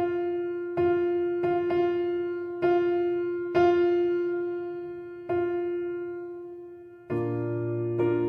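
Background music: a slow, gentle piano melody, single notes struck about once a second and left to ring and fade, with a deeper chord coming in near the end.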